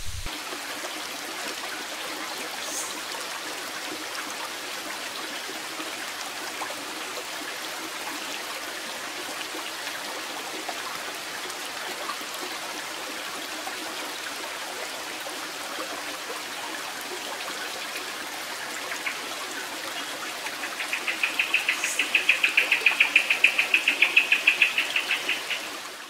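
Steady rush of flowing water from a stream or waterfall. About twenty seconds in, a high, rapid pulsing sound joins it for about five seconds, several pulses a second and louder than the water.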